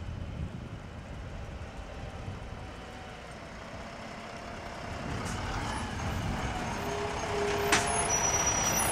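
Volvo semi-truck hauling a loaded drop-deck trailer approaches, its engine and tyres growing steadily louder as it nears. A short squeal and a sharp click come near the end.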